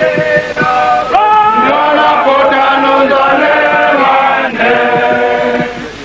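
A group of men singing together in a chant-like song, holding long notes that step from pitch to pitch. The singing dips briefly near the end.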